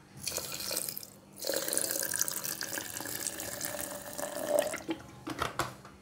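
Chilled water poured from a plastic bottle into a plastic shaker jar onto coffee powder and sugar: a short splash, then a longer steady pour. A few light clicks come near the end.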